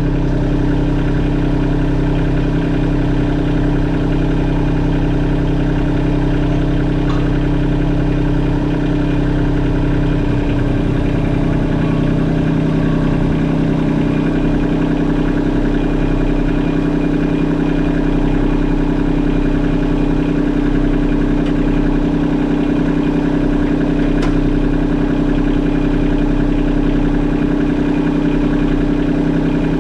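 Kubota LX compact tractor's diesel engine idling steadily, its low note shifting slightly about ten seconds in.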